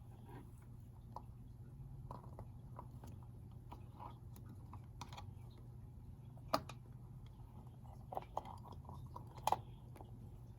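Scattered small clicks and taps, irregular and a few louder ones, over a steady low hum.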